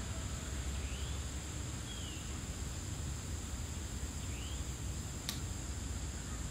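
Quiet summer woodland ambience: a steady high insect drone over a low rumble, with three faint short bird chirps and a single faint click about five seconds in.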